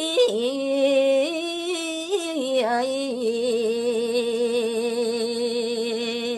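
A woman singing a Balinese pupuh (gaguritan verse) unaccompanied, in a slow, drawn-out style. The melody steps down through a few notes, then settles about three seconds in on one long held note with vibrato.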